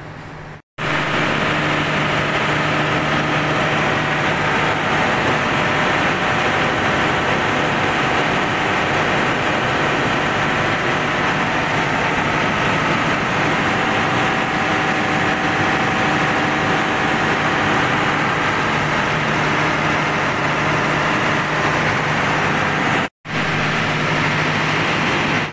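An engine running steadily and loudly with a constant low hum, unchanging in speed. It cuts off abruptly for an instant near the end, then carries on the same.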